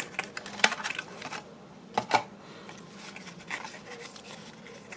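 Hands handling a small earphone product box: a few sharp clicks and light rustles of the packaging, the loudest about half a second and two seconds in.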